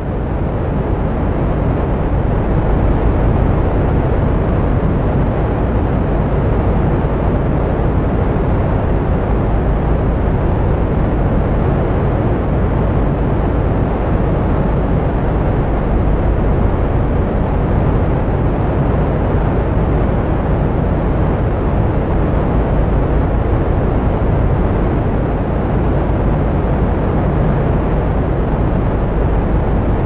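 Loud, steady outdoor ambience: a dense low rumble of noise with no separate events standing out.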